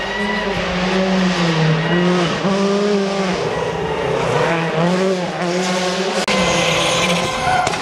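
Rally car engine revving hard through a tight tarmac corner, its pitch repeatedly dropping and climbing again as the driver lifts, shifts and gets back on the throttle. A brief higher hiss joins it for about a second near the end.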